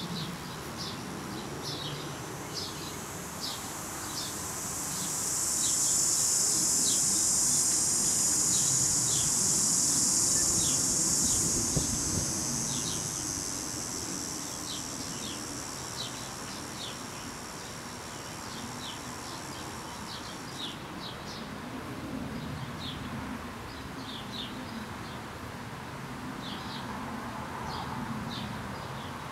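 A high, hissing insect buzz swells in a few seconds in, holds for about fifteen seconds and cuts off abruptly, over a bird's short high chirps repeated about once a second.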